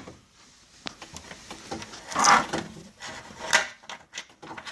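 Plastic trunk-lid trim piece being pulled up and worked loose, rubbing and creaking against the decklid with light clicks, and a louder scrape about halfway through and another shorter one later.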